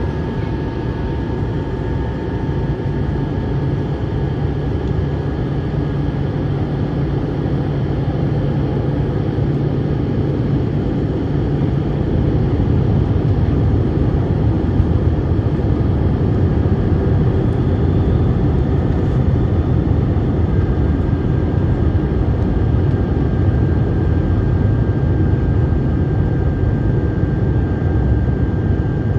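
Steady cabin noise inside an Airbus A321 airliner in flight: a continuous low rush of engines and airflow with a faint steady whine over it. It grows slightly louder about halfway through.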